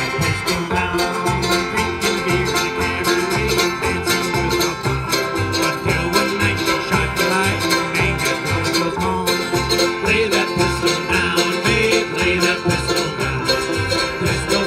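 Bluegrass string band playing an instrumental stretch without vocals: upright bass plucking a steady beat under banjo rolls, mandolin and strummed acoustic guitar.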